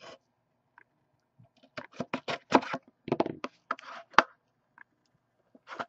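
Plastic shrink wrap on a sealed trading-card box crinkling and crackling as it is slit and pulled off by hand, in a dense run of short crackles for about two and a half seconds starting near two seconds in.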